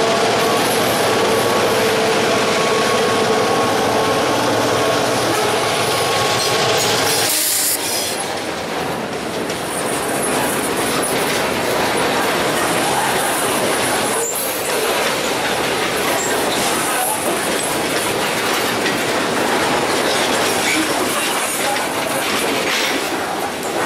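A diesel freight locomotive runs past at close range, with a steady hum over its rumble. About seven seconds in, the sound changes to a string of freight cars (covered hoppers and tank cars) rolling by, with steady wheel and rail noise and clatter.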